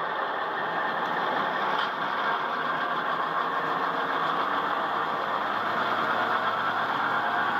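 Tsunami sound decoder playing an EMD diesel engine sound through an HO-scale E9A locomotive's small onboard speaker, a steady engine running sound that grows a little louder early on and then holds, as the locomotive pulls against a pull meter.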